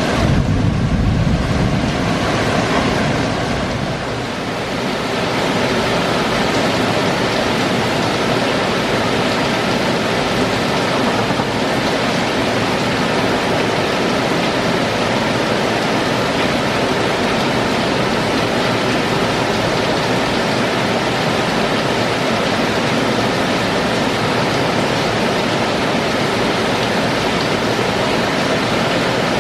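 Heavy rain pouring down steadily, a dense, even hiss. A low rumble sits under it in the first couple of seconds.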